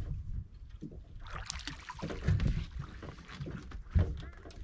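Sounds aboard a small open fishing boat on the drift: water against the hull and a low wind rumble on the microphone, with scattered handling knocks and a sharp thump about four seconds in.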